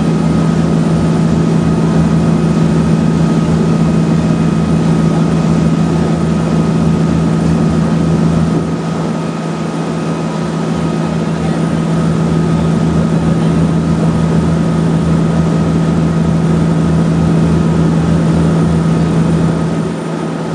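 Boat engine running steadily: a loud, constant low drone with a strong steady hum.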